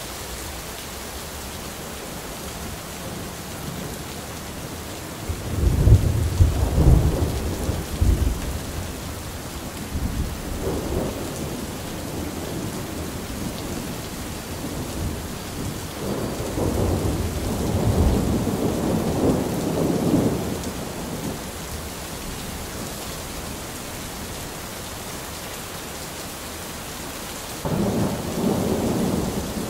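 Thunderstorm: steady rain with thunder rumbling several times. The loudest clap comes about six seconds in, a long rolling rumble runs from about sixteen to twenty seconds, and another roll starts near the end.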